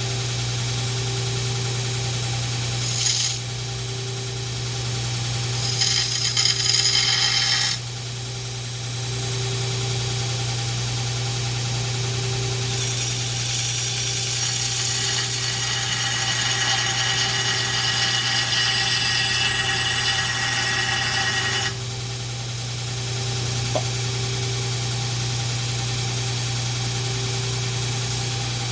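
Belt grinder running with a steady hum while a cleaver's edge is ground against the belt: a brief pass about three seconds in, another around six seconds, then a long grinding pass of about nine seconds that stops abruptly.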